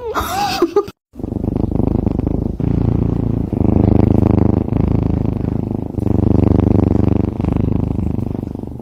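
A short cat meow, then after a brief gap a white kitten purring loudly and steadily while its belly is rubbed. The purr swells and eases with each breath.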